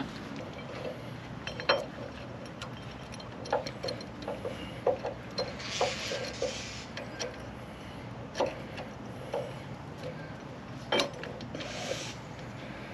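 Scattered light metallic clicks and knocks, with a couple of brief scraping sounds, from a new boat trailer axle and wheel hub being handled and worked into position over a bottle jack.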